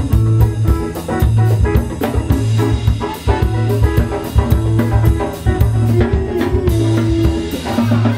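A live band playing: a drum kit keeping a steady beat under electric bass and electric guitar, with a saxophone in the band.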